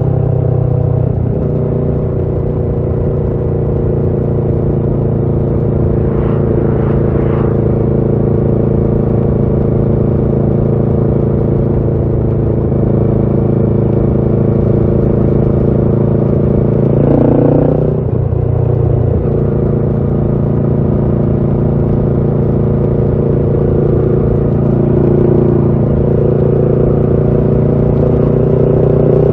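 Kawasaki Ninja 650's parallel-twin engine running through a Shark SRC-4 full aftermarket exhaust while riding at a fairly steady engine speed. About seventeen seconds in, the pitch briefly rises and then drops back.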